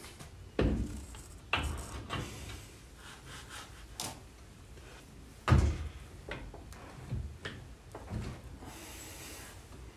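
Scattered clunks and light scrapes of a steel front spindle being handled and set onto the control arms' ball joint studs, about eight knocks at uneven spacing, the loudest about five and a half seconds in.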